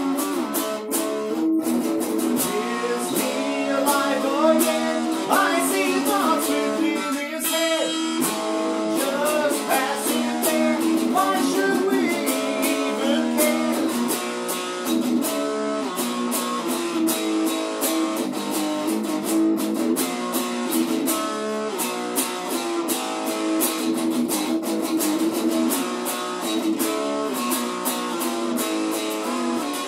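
Electric guitar played through a small amplifier, picking a rock riff with bent, gliding notes a few seconds in; the sound is thin, with little bass.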